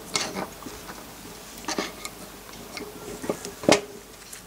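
Light scattered clicks and scrapes of a thin pick working the rubber dust boot off a clutch master cylinder, with one sharper click near the end.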